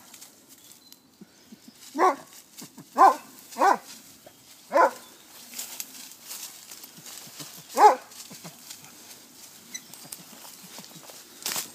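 Hunting dog barking five times: four short barks close together in the first few seconds, then one more a few seconds later, with faint rustling of brush in between.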